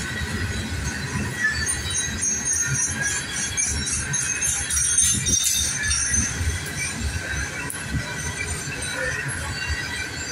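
Freight train's hopper cars rolling past: a steady low rumble of steel wheels on rail, with high-pitched wheel squeal that comes and goes.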